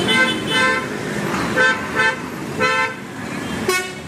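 A vehicle horn tooting in short beeps, mostly in pairs, about six times, with a different, brighter-toned horn near the end. Road traffic runs underneath.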